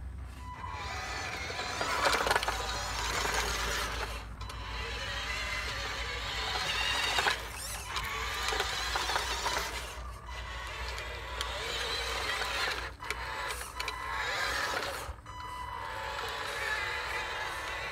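Electric gear motors of a Wltoys 16800 RC excavator whining as the boom, arm and bucket are worked, in runs of a few seconds with short pauses between, the pitch rising and falling as each motor speeds up and slows down.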